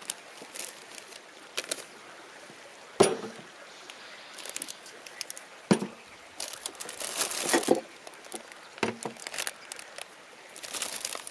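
Plastic food packaging crinkling and rustling, with a few sharp knocks as items are set down on a plastic folding table, loudest about three seconds in and again near six seconds.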